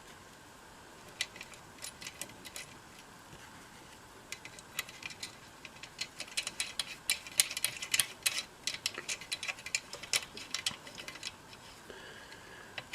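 Small metal parts being handled and fitted during radio reassembly: light, irregular clicks and ticks of hardware against the chassis, sparse at first and coming thick and fast in the middle.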